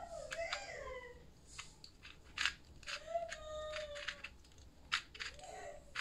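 Plastic 2x2 Rubik's cube being twisted by hand: irregular sharp clicks and scrapes as the layers turn, the loudest about two and a half and five seconds in. A brief hummed or sung voice comes near the start and again around three seconds in.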